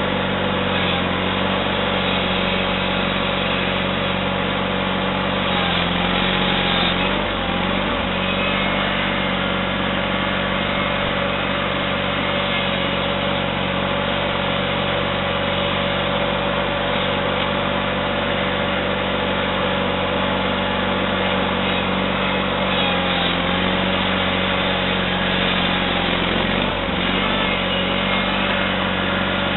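Small garden tractor's engine running steadily under load while plowing snow, its note dipping briefly twice: about seven seconds in and again a few seconds before the end.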